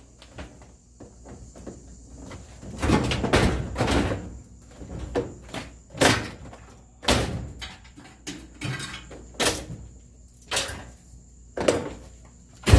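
Sheet-metal panels of a dryer cabinet clanking and thumping as the loose top panel is worked on: a string of separate knocks, roughly one a second.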